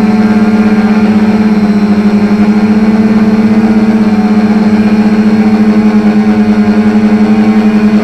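Quadcopter motors and propellers buzzing steadily, heard close up through the onboard camera, with a low even drone pitch and a fast pulsing beat.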